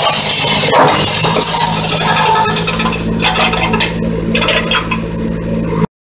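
Tractor-mounted GeoTech Pro LFM105 flail mulcher running, its hammer rotor shredding grass and scrub over a steady low hum, with scattered clicks and rattles of debris. The sound cuts off abruptly near the end.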